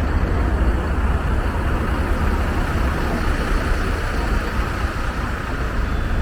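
Steady road traffic noise: cars and buses running past, with a deep, continuous rumble.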